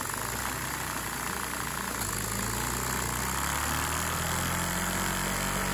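A Lego vacuum engine running on suction from a vacuum cleaner, with the cleaner's steady hiss behind it; the engine's note shifts about two seconds in.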